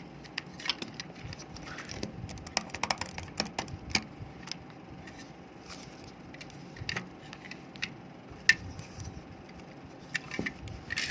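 Irregular sharp clicks and taps of small plastic parts as an E-Blue computer mouse is handled for opening. The clicks bunch together a couple of seconds in, with a louder single click later.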